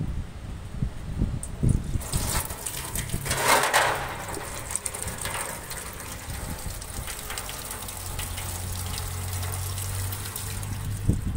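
Fluid gushing out of a car engine's oil pan drain hole once the drain plug is off, the jet splashing onto the floor and into a drain pan. A steady splashing hiss sets in about two seconds in and is loudest a second or so later.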